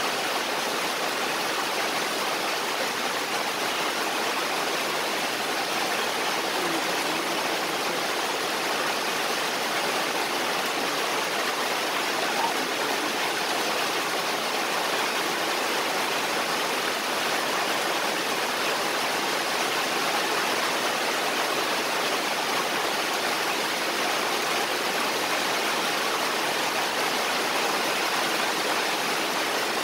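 Steady, even hiss of rain falling, unchanging and with no pauses.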